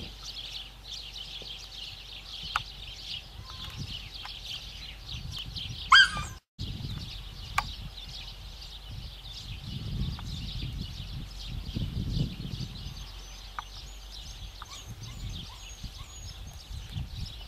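Many birds chirping densely and continuously over wind rumble on the microphone. About six seconds in, one loud, brief sound slides upward, and the audio cuts out for a moment.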